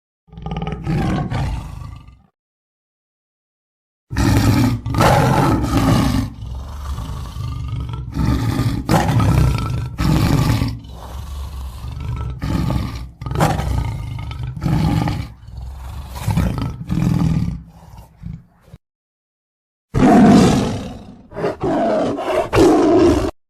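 Lion roaring: a long series of loud roars and grunts in three bouts, each cut off into complete silence before the next begins.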